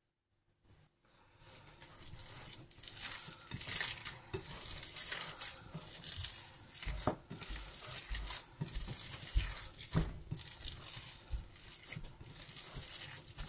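Hands mixing and kneading a moist, crumbly mashed red-lentil kebab mixture in a glass bowl: a continuous soft squishing and rustling with frequent small clicks, starting about a second and a half in.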